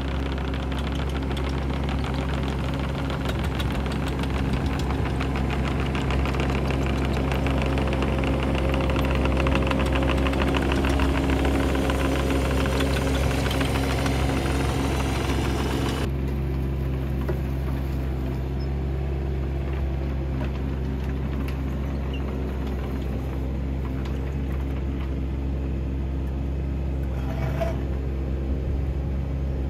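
Bobcat 319 mini excavator's diesel engine running steadily as the tracked machine travels, loudest about a third of the way in as it passes close by.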